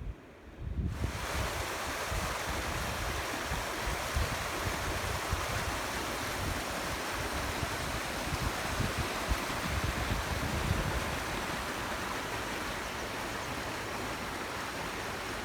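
River water rushing steadily, starting suddenly about a second in, over an uneven low rumble of wind on the microphone.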